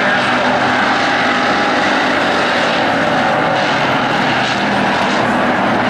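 Sportsman stock cars' V8 engines running hard as they race around the oval track, a steady, loud engine drone of several cars together.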